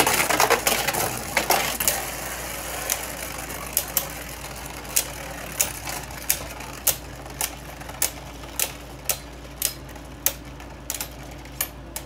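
Two Beyblade Burst spinning tops, Wonder Valtryek and Geist Fafnir, whirring and scraping over a plastic stadium floor just after launch. They then knock together in sharp clicks, about two a second, as they slow.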